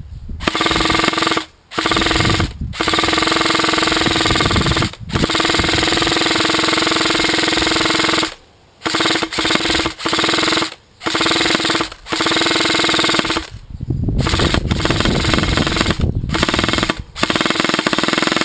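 Airsoft M4 electric rifle firing full-auto in long bursts, the gearbox buzzing at a steady pitch, stopping and starting about ten times. It is fed from a wind-up fast mag that it runs nearly empty.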